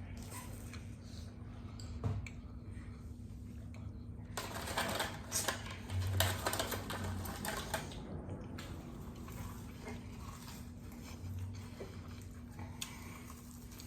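Chewing and food handling with crinkling of paper fast-food wrappers, the crinkling densest from about four to eight seconds in.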